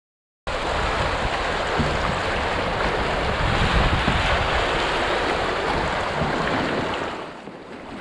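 Whitewater of a river rapid rushing and splashing around an open canoe. It cuts in sharply about half a second in and drops to a quieter flow near the end.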